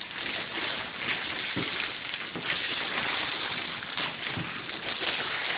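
Gift wrapping paper rustling, crackling and tearing as a present is unwrapped by hand, with a few soft knocks from the box underneath.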